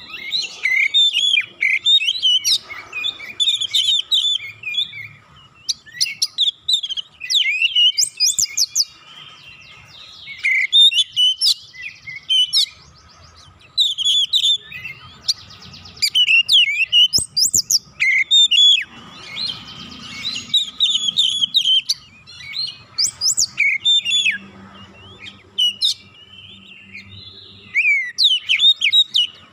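Oriental magpie-robin singing loudly in full song: bursts of quick, varied whistled phrases with sweeping notes and rapid trills, broken by short pauses.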